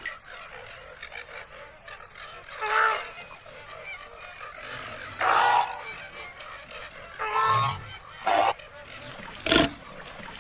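An animal calling five times, with short loud pitched calls spread a second or two apart over a low, noisy background.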